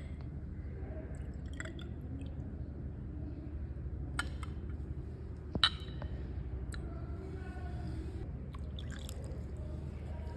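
Water poured from a glass measuring cylinder into a glass beaker, with a few light clinks of glass on glass, the sharpest a little past halfway, over a steady low hum.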